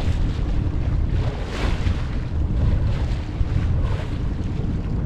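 Wind buffeting the microphone with a heavy low rumble, over choppy water washing and splashing against a sailboat's hull, the splashing swelling now and then.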